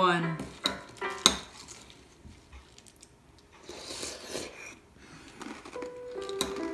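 Metal spoon clinking against a ceramic cereal bowl of cereal and milk: a few sharp clinks in the first second and a half, then a softer scraping rustle about four seconds in. Music with held tones comes in near the end.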